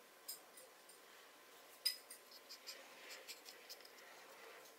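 Cotton swab scraping and ticking against the metal parts of a Singer 401 sewing machine's needle-bar mechanism while old grease is cleaned out: faint scratching with small clicks, the sharpest about two seconds in, then a quick run of them.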